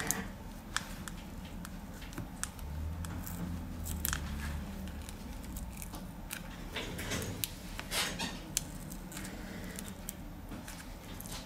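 Scattered small clicks, ticks and scrapes of hand tools working on a ZTE Axon 7 Mini smartphone's casing as the back cover is taken off, with a brief low hum between about two and four seconds in.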